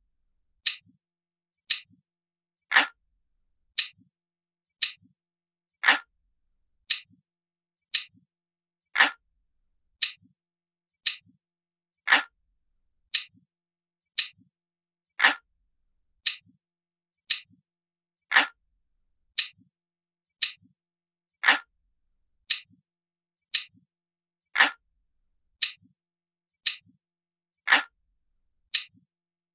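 Glass-like clock ticking sound effect, a crisp tick about once a second with every third tick louder and fuller.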